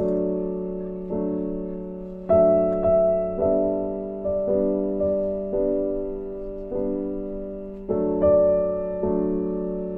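Slow, soft background piano music: chords struck about once a second, each fading away before the next.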